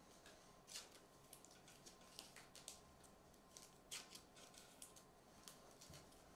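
Faint, scattered soft swishes and light ticks of basketball trading cards being handled and slid over one another.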